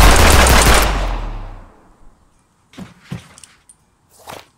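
Loud, heavy backing music fading out over the first second and a half, followed by a few short, faint clicks and knocks.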